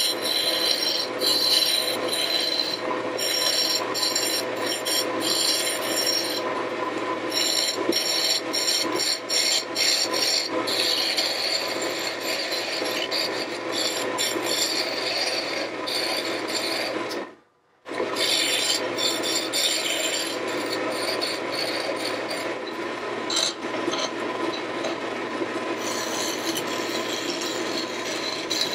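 Wood lathe running with a steady hum while a turning tool cuts a spinning wooden pestle blank, giving a continuous scraping hiss of shavings coming off. The sound cuts out briefly about two thirds of the way in, then the cutting carries on.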